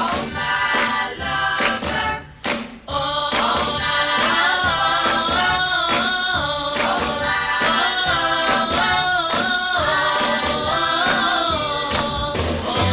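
Early-1960s girl-group pop record: harmonised female voices singing over a steady beat of regular percussion hits. The voices come in about three seconds in, after a brief drop in the music.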